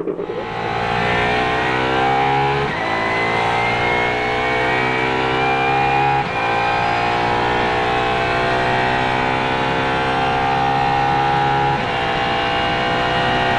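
Apollo IE's naturally aspirated V12 accelerating hard, climbing in pitch through the gears with three quick upshifts, about 3, 6 and 12 seconds in.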